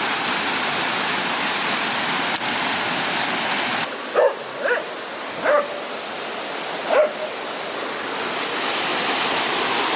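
Waterfall rushing steadily, the noise dropping a little about four seconds in. Over it, a dog gives four short barks between about four and seven seconds in.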